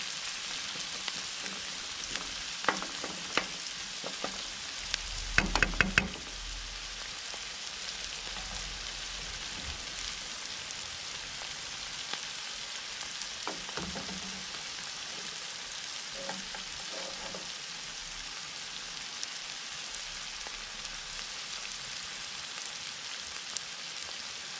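Chopped onions sizzling steadily as they fry in hot oil in a frying pan, still pale and not yet browning. A wooden spoon knocks and scrapes against the pan several times in the first few seconds, loudest about five to six seconds in, with a few lighter taps later.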